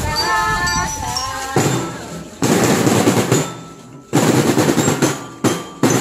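Snare drums of a children's marching drum corps played in rapid rolls. The rolls come in several loud bursts with short breaks, starting about a second and a half in.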